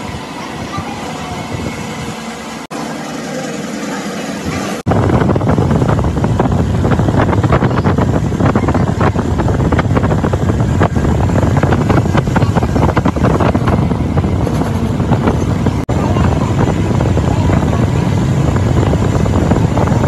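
Metal repair work on an excavator wheel spindle: a loud, steady, crackly noise that jumps up abruptly about five seconds in and holds.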